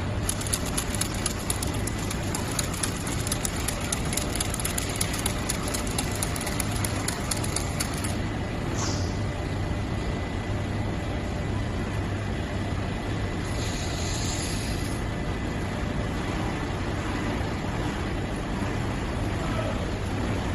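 Steady mechanical noise with a low hum, and a fast fine ticking over it for the first eight seconds.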